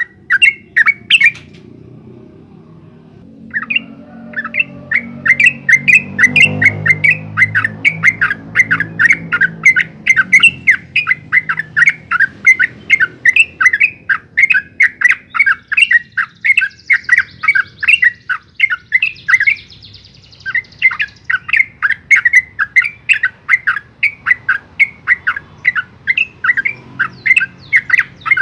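Yellow-vented bulbul (trucukan) singing a long, rapid run of sharp repeated notes, about four or five a second, breaking off briefly a little past the middle and then starting again.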